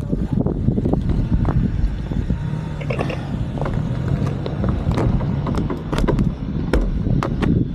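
Wind buffeting the camera microphone and tyre rumble from a bicycle being ridden on a tarmac road, with irregular sharp clicks and rattles throughout.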